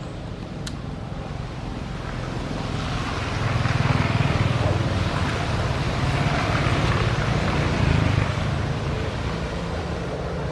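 A motor vehicle running past: a low engine rumble with road hiss that swells over a couple of seconds, holds for about five seconds, then fades.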